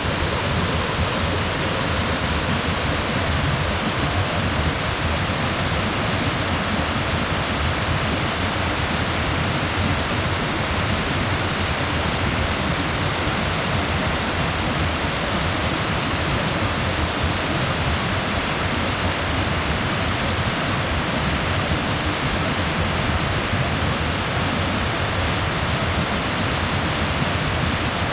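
Brook waterfall pouring over stepped rock ledges into a pool: a steady, even rush of falling water.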